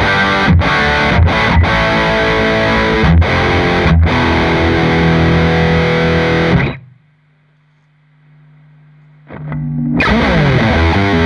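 High-gain distorted electric guitar: a Gibson Les Paul played through the AmS Revenge 50S tube head, two KT77 power tubes, on its overdriven channel 2, playing riffs. The playing stops abruptly about two-thirds of the way in, leaving a quiet break of about three seconds with only a faint low hum. It then comes back with a rising slide into a fast rhythmic riff.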